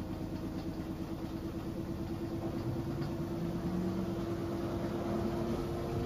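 Front-loading washing machine ramping up in its spin cycle, not yet at full speed: a steady motor hum over a low, pulsing rumble from the drum, with a lower tone slowly rising in pitch and the sound growing a little louder.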